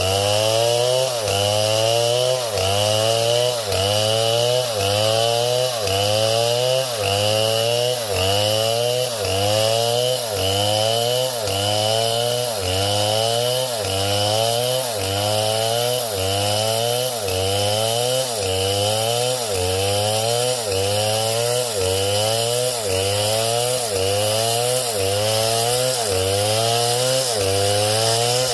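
Chainsaw engine rising in pitch over about a second and dropping back sharply, over and over in a steady cycle about once a second.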